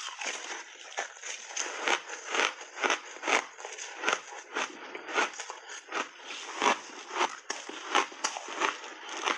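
Close-up crunching and chewing of a frozen purple ice block coated in heavy cream, with sharp, irregular crunches about two a second.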